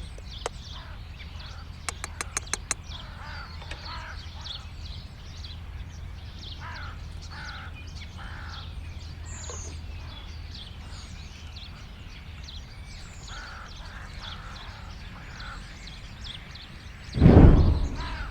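Birds calling outdoors: many short high chirps throughout, with a few harsher calls in groups of two or three. A quick run of clicks comes about two seconds in, and a loud, low rumble near the end.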